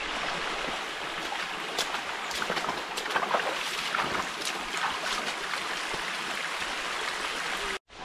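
Shallow stream running over rocks, with a few short splashes as feet step through the water.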